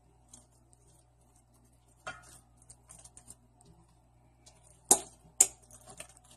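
Basting brush knocking and scraping against a ceramic bowl of melted spiced butter and brushing over a roasted turkey: a knock about two seconds in, then two sharp clicks about half a second apart near five seconds, with soft scrapes between, over a faint steady hum.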